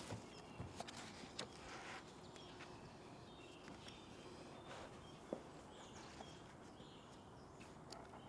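A few small knocks and rustles in the first two seconds as a person sits down at a table and handles a book, then faint outdoor quiet with a few soft bird chirps.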